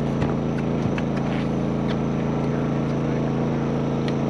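A steady motor drone from the bowfishing boat: an even, low hum of several pitches that never changes, with a few light clicks and taps over it.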